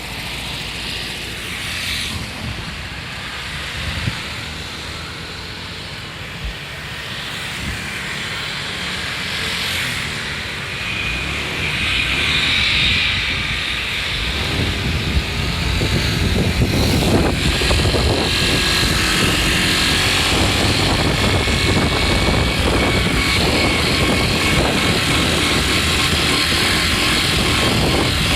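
Fourth-generation Yamaha Cygnus X scooter's single-cylinder engine running with the throttle being worked, getting louder about halfway through. An abnormal howling noise rises and falls with the throttle.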